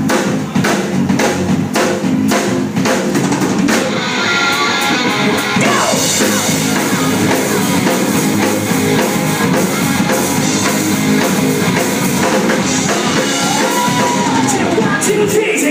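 Live rock and roll band playing, drum kit and electric guitar. It opens on a steady drum beat, and the full band sound fills out with more cymbal about four seconds in.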